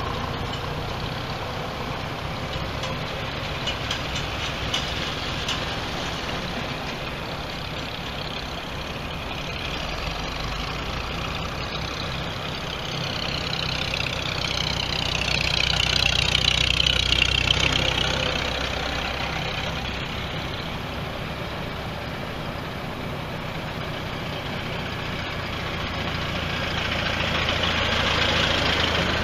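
Engines of a procession of vintage farm tractors running steadily on the road. The sound swells as one tractor passes close by about halfway through, and again as another comes alongside near the end.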